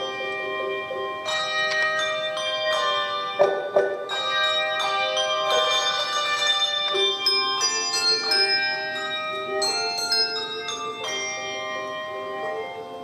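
Handbell choir playing: many tuned handbells rung in chords, their notes ringing on and overlapping, with two sharp, louder strikes about three and a half seconds in.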